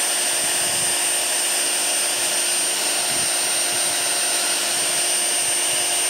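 Handheld power sander running steadily against metal pipe: a high, even whine over a rough hiss. It is sanding the tube bare as prep for welding.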